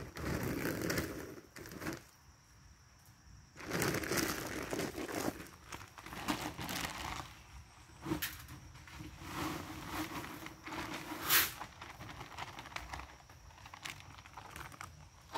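Plastic bags of deer feed crinkling and tearing as they are handled and opened, in several bouts with short quieter gaps, and feed poured from a bag into the metal hopper of a deer feeder.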